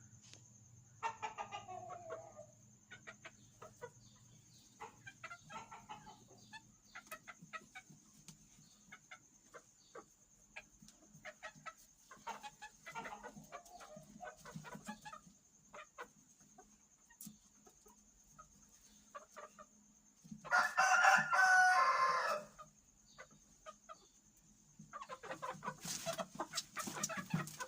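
Aseel chickens clucking, with a rooster crowing once, loud and about two seconds long, some twenty seconds in. A faint steady high whine runs underneath.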